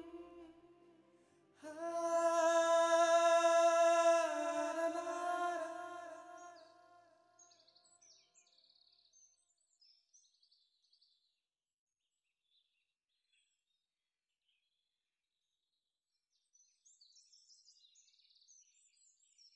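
Background music: one long held note that fades out after about five seconds. Faint bird chirps follow, briefly, then again near the end.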